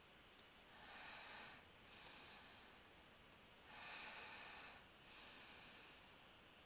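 Faint breathing close to a headset microphone: two slow breaths about three seconds apart, each a hissy in-and-out swell, with a single small click shortly before the first.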